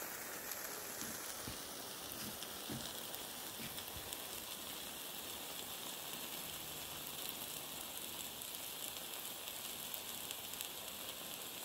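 Egg-and-cheese chaffle batter sizzling inside a closed Dash mini waffle maker: a faint, steady hiss as it steams, the stage where the chaffle puffs up inside.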